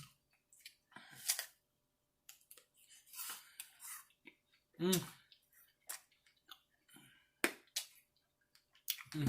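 Close-up chewing of a crunchy fruit-and-nut snack: irregular crunches and wet mouth clicks. Two brief sounds of the voice come about five seconds in and near the end.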